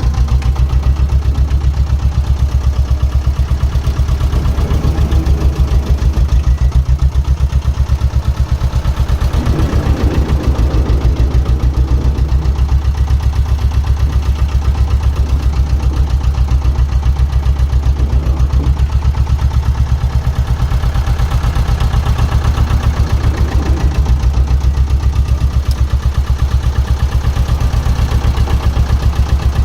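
Diesel engine of construction plant running steadily close by, with a fast, even pulsing beat and brief swells in the middle range as it works.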